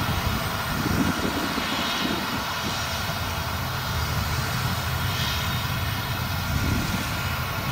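Claas Lexion 770 TT combine harvester threshing rapeseed while unloading on the go, with a tractor and grain cart running alongside: a steady engine drone with a constant high whine over it.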